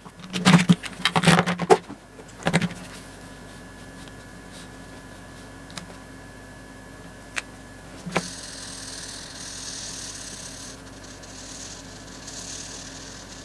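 A few sharp clicks and knocks in the first couple of seconds, then a felt-tip marker rubbing over paper as it colours in: a soft, uneven scratchy hiss that starts about eight seconds in and keeps going.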